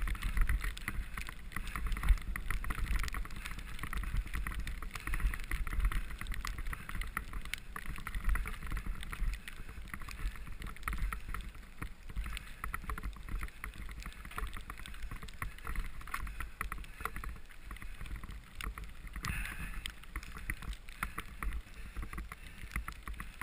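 A bicycle ridden fast over a bumpy snow-covered trail, heard from a camera riding along: constant rattling and knocking over the bumps, with wind rumbling on the microphone.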